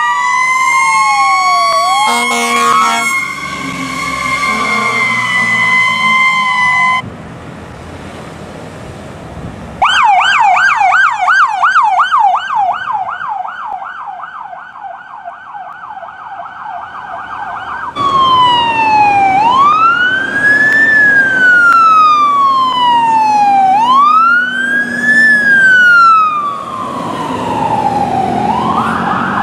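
Emergency vehicle sirens on responding fire apparatus, in a run of short clips. First several overlapping wailing sirens, then after a cut a fast yelp siren, then after another cut a slow wail rising and falling about every two and a half seconds.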